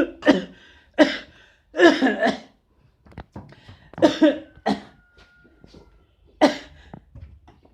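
A man coughing hard in repeated fits: clusters of two or three coughs, about five groups in all, with short pauses between.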